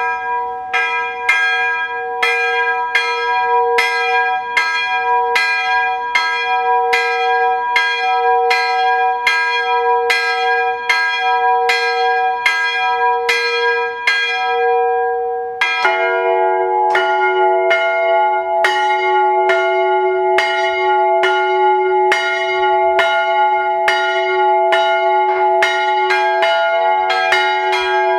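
Bronze church bells swung by hand with a rope, the clapper striking over and over. One higher-pitched bell rings on its own at first; about halfway through a second, lower-pitched bell joins in, and their strokes overlap.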